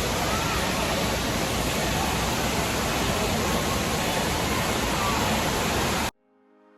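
Steady din of an indoor water park: rushing water and crowd noise echoing in a large hall. It cuts off abruptly about six seconds in, and soft music starts to fade in.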